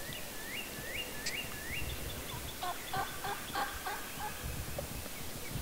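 A wild turkey gobbler gobbles once, a rapid rattling call about halfway through. Before it come four quick rising whistles from a songbird.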